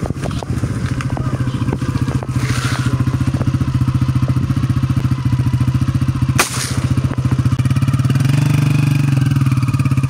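Small motorcycle engine running with a steady, fast pulsing beat, a little louder near the end. A single sharp knock about six and a half seconds in.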